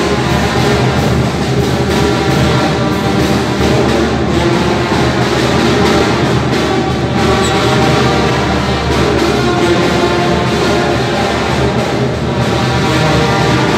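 Loud, steady band music with brass, playing for a traditional masked dance.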